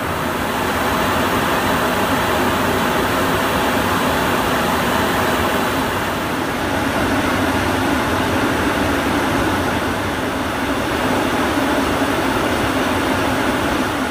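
Steady rushing cabin noise inside the cockpit of a Cessna Citation CJ3 business jet in cruise: airflow and engine noise with no changes.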